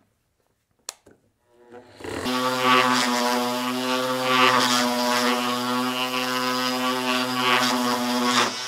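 Ridgid random orbit sander starting up about two seconds in and running steadily on a wooden board, a motor hum under the hiss of the abrasive disc, then shutting off near the end.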